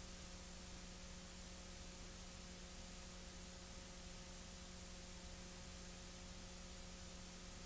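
Faint, steady hiss with a low electrical hum underneath, the noise floor of an old recording transfer, with no other sound.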